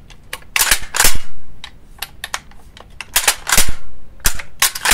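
Pump action of an Aksa T12 bullpup 12-gauge shotgun being racked back and forth by hand: a series of sharp metal clacks, loudest about a second in and again around three and a half seconds in.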